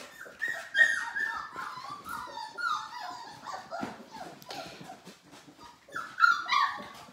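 Labrador puppy whining and whimpering in a run of high-pitched cries, with a louder burst of whines near the end: a pup complaining as its weaning mother turns it away.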